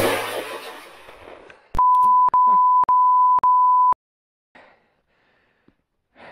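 A single sharp bang right at the start that dies away over a second or so, then a loud, steady electronic beep of about two seconds, broken by three short clicks: an edited-in censor bleep.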